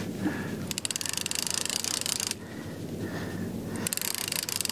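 Sea fishing reel being wound in with rapid, even clicking from its gears, in two spells with a short pause between, hauling up a dead weight that puts up no fight.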